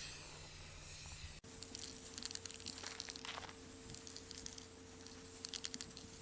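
Quiet hiss of a Rust-Oleum 2X aerosol spray paint can being sprayed onto a steel target, followed by a few short sprays and crackly clicks.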